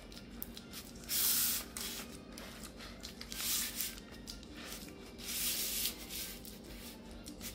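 Silicone spatula scraping and pressing buttery granola crumbs into a springform pan, in three rasping strokes spaced about two seconds apart.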